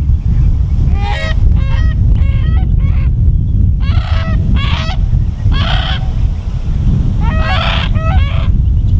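Brolgas calling: repeated calls in short runs of a few notes each, with pauses between the runs. A steady low wind rumble on the microphone runs under the calls.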